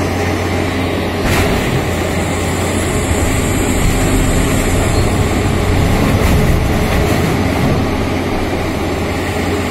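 Rotary piling rig's diesel engine and hydraulic drive running steadily as the kelly bar turns in the bore, with a steady low hum and a short knock about a second in.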